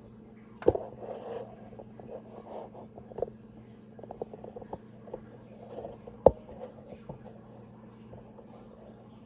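Handling noise as an Elcaset cassette and tools are picked up and set down: a sharp knock about a second in and another a little after six seconds, with small clicks, scrapes and rustles between, over a steady low hum.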